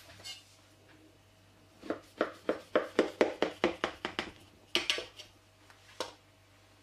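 Kitchen knife chopping down through stacked raw baklava pastry sheets in a metal baking tray. A quick run of about a dozen sharp ticks comes at three or four a second from about two seconds in, followed by a couple of single ones.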